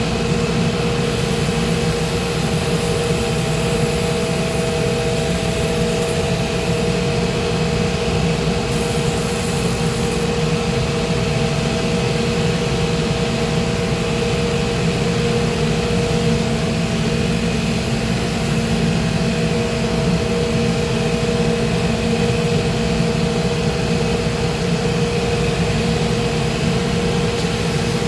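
Shoe repair finishing machine running with a steady hum and whine while a crepe-soled lift is sanded down, with spells of extra high hiss about a second in and again about nine seconds in.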